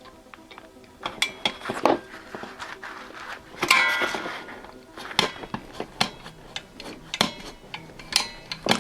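Thin stainless steel sheet being worked by hand in a vise, bent back and forth to break it by metal fatigue: a string of irregular metallic clanks that ring briefly, the loudest with a rattling scrape about four seconds in.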